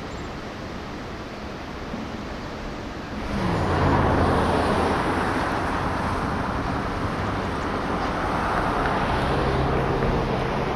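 Steady wind and surf hiss. About three seconds in, a louder engine drone takes over: its pitch drops briefly and then holds steady over a wash of road traffic noise. The drone comes up again near the end.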